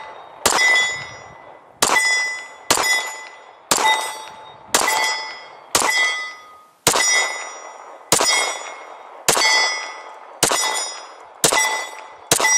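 Glock 23 .40 S&W pistol fired in slow, steady succession, about a dozen shots roughly a second apart. Each shot is followed by a ringing metallic clang that dies away, typical of a bullet striking a steel target.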